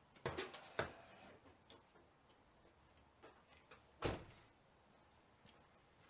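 A few light, sharp clicks or knocks over a quiet background: two about half a second apart near the start, then a louder one about four seconds in.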